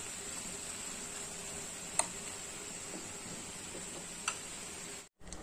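Steel spoon clinking twice against an iron kadhai while stirring a thick, sticky coconut-almond mixture, over a faint steady hiss with a thin high tone.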